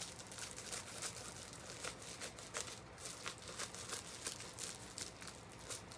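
Padded plastic mailer crinkling and tearing as it is pulled open by hand: a continuous run of faint, irregular crackles and rustles.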